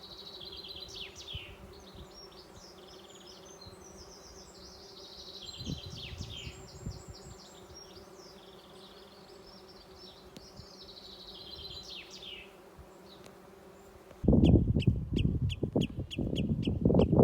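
Steady hum of many bees foraging on the flowers of a blossoming tree, with birds chirping and trilling over it. About fourteen seconds in, a sudden loud low rumble takes over, with a quick repeated high call about three times a second.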